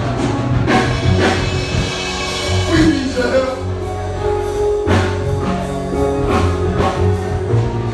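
Gospel music played by a band, with drums, bass and held chords, and a voice singing.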